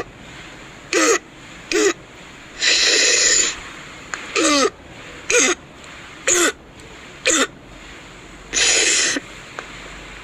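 Recorded sample of a child's croup cough: six short, hoarse, barking coughs, likened to the sound of brakes, broken twice by a long noisy in-breath.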